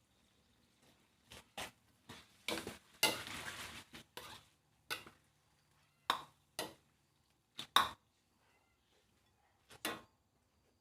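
Kitchen pots and utensils being handled: a dozen or so short, separate knocks and clinks, with a longer stretch of clattering noise about three seconds in.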